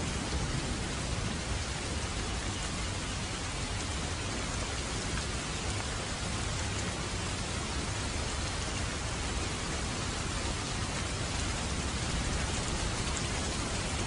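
Heavy rain falling steadily on pavement and foliage: an even, unbroken hiss with a low rumble underneath.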